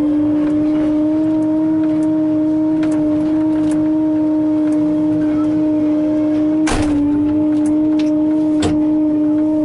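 Excavator running with a steady, even drone, with scattered light clicks and one sharp knock at about six and a half seconds.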